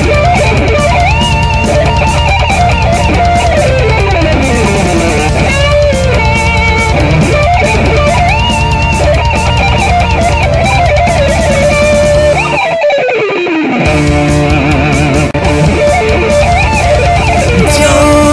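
Rock song instrumental break: an electric guitar solo with bending, sliding lead lines over a steady beat and bass. About 12.5 s in, the bass and drums drop out for a moment under a long falling slide, then the band comes back in.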